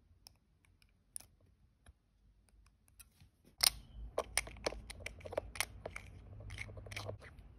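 Faint ticks of metal tweezers on a quartz watch movement, then from about three and a half seconds a sharp click and a run of clicks and scraping as the stainless steel case back of a Citizen diver watch is fitted by hand, with fingers rubbing on the case.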